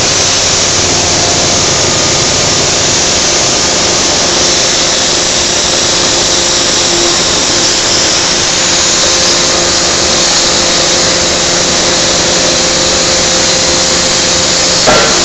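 Loud steady noise of running machinery, with a few faint steady hum tones under it. Near the end comes one heavy blow of an electro-hydraulic forging hammer striking a hot billet on the anvil.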